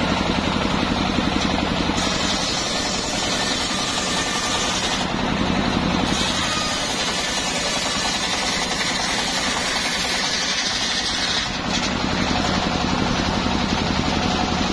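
Homemade circular sawmill running under load as a log is fed through its large blade: the engine runs steadily while the blade rips the wood. The high part of the cutting sound comes and goes a few times as the cut changes.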